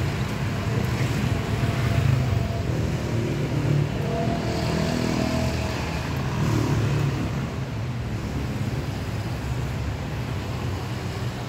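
Steady low rumble of road traffic and motor engines, with faint short tones mixed in about four to five seconds in.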